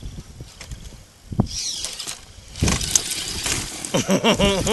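Radio-controlled rock crawlers' electric motors and gears whining as they work over rocks, with a click about a second and a half in. Near the end a person's voice rises and falls briefly.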